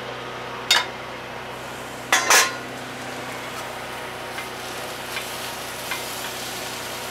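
A tortilla frying on a flat-top griddle under a grill press, giving a steady sizzle. Cooking utensils clank sharply once a little under a second in and twice just after two seconds.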